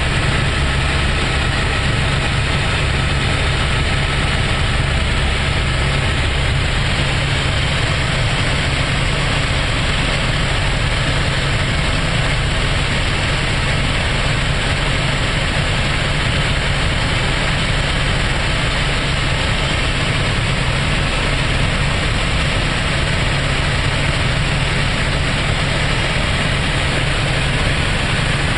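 Helicopter in cruise flight, heard from inside the cabin: a loud, steady drone of rotor and turbine engine with a constant low hum, unchanging throughout.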